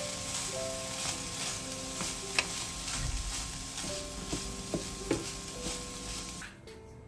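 Minced meat with onions and chilies sizzling in a nonstick frying pan while a wooden spatula stirs and scrapes it, with scattered clicks of the spatula against the pan. The sizzling stops near the end.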